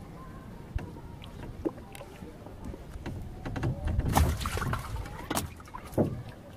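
Knocks and clatter on a wooden boat's bamboo-slat deck as a hooked fish is landed and handled, busiest about four to five seconds in, with a sharp knock soon after.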